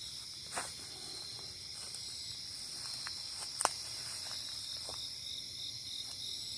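Crickets trilling steadily in a high chorus, with a few short sharp clicks, the loudest about three and a half seconds in. From about four seconds in, a soft pulsing chirp joins, about three a second.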